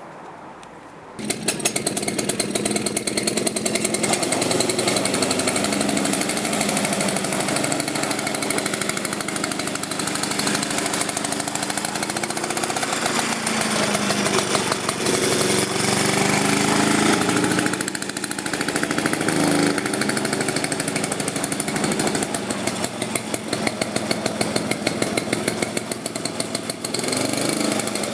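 Villiers petrol engine of a 1957 Ransomes Minor Mark 7 lawnmower coming in loud about a second in and running with a rapid, rattly firing, its speed rising and falling a little.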